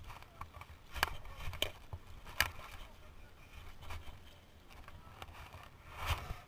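Mountain bikes being pushed by hand over a muddy trail: a few sharp knocks and rattles from the bikes over low rustling and scuffing.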